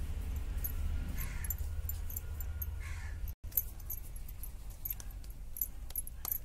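A bird calling outdoors, two short calls about a second and a half apart, over a low steady rumble. The sound drops out completely for an instant about three and a half seconds in.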